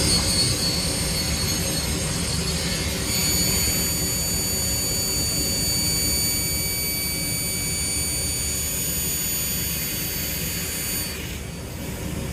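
Elumatec MGS 142/11 mitre saw running, its 500 mm blade spinning with a steady hum and a high whine. The whine changes pitch and grows a little louder about three seconds in, then fades away near the end.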